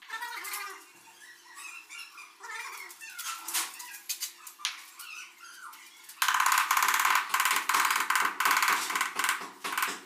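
Light clicks of ceramic tiles being handled, then about six seconds in a mallet starts rapid, steady tapping on a ceramic wall tile, bedding it into the mortar.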